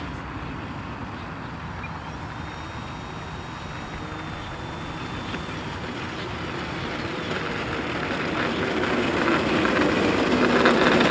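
Small electric RC airplane rolling in on an asphalt runway after landing: a steady noise of its propeller and foam wheels that grows louder over the last five seconds as it comes near.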